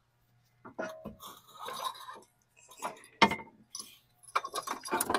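Metal clinking, scraping and knocking as the old passenger-side CV axle of a 2005 Toyota Camry is worked free and pulled out. A sharp knock a little after three seconds in is the loudest, and a quick run of clinks comes near the end.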